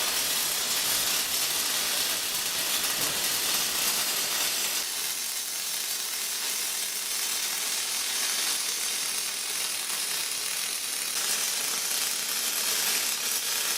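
MIG welder laying a bead on aluminium: a steady crackling hiss that keeps going without a break.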